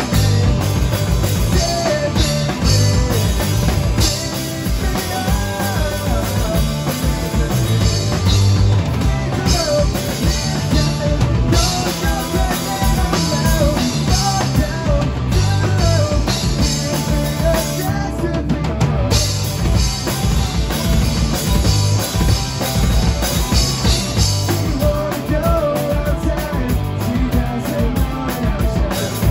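Live rock band playing: drum kit pounding out a steady beat under distorted electric guitars.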